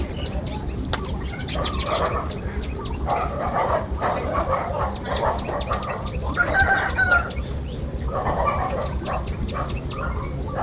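Farmyard animals and birds calling in four or five bursts, with short chirps in between, over a steady low rumble.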